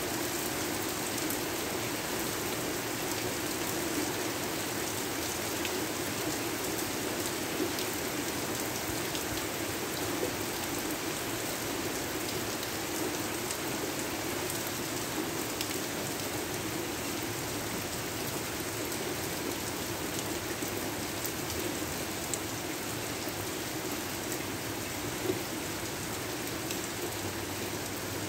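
Steady rain falling, with a constant hiss and scattered individual drops ticking on a surface.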